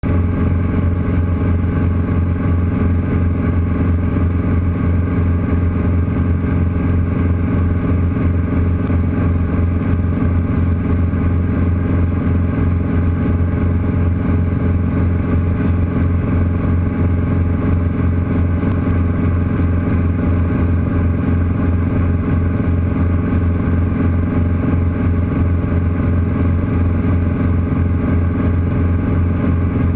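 Cabin noise of a Guimbal Cabri G2 helicopter in steady cruise: its Lycoming four-cylinder piston engine and rotor make a loud, steady low drone with a fast, even throb, unchanging throughout.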